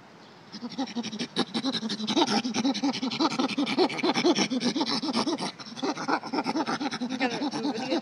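Recorded chimpanzee calls played back from an exhibit's push-button sound panel, the clip for chimp screaming: starts about half a second in as a fast run of rhythmic calls, about five a second, with rising and falling cries near the end.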